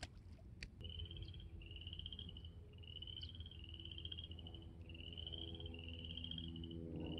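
Frogs calling from the flooded shoreline: short trills, each under a second long, one after another about once a second, starting about a second in. A steady low hum runs underneath.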